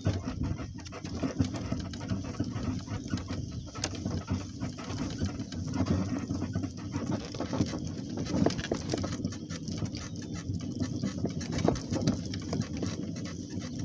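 A donkey walking through grass: irregular scuffing and rustling, with scattered clicks and knocks.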